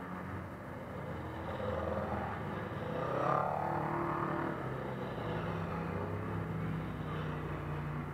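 Off-road buggy engines driving past at low speed, one revving up with a rising pitch about three seconds in. A steady engine idle runs underneath.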